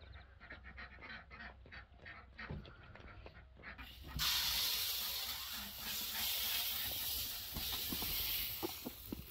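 A few light steps on stony ground. About four seconds in, grain is tipped from a metal basin onto a metal trough and pours in a steady hiss until the end.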